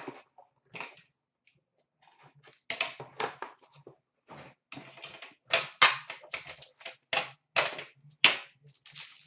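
A metal Upper Deck Premier card tin and a utility knife being handled on a glass counter: a string of sharp, irregular clicks and taps as the tin is opened.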